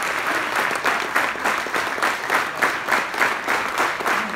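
Large audience applauding, clapping together in a steady rhythm of about four claps a second.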